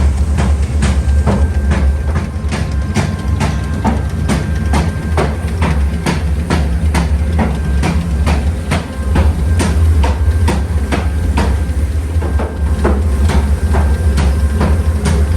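Metal being hammered in a forging workshop: sharp blows at about two to three a second over a steady low machine hum.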